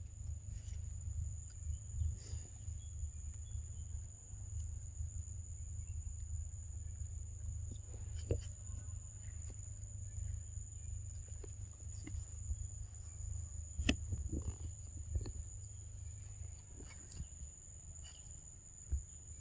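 Steady high-pitched insect drone over a low rumble, with scattered soft clicks and rustles; the sharpest click comes about two-thirds of the way through.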